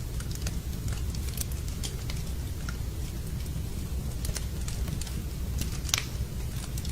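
Wood fire burning in a fireplace: scattered crackles and pops over a steady low rumble, with one sharper pop about six seconds in.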